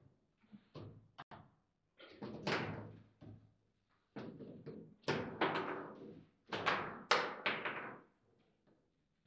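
Foosball table in play: hard knocks and thunks, in quick clusters with short pauses between, as the ball is struck by the rod figures and bangs against the table, each knock ringing briefly.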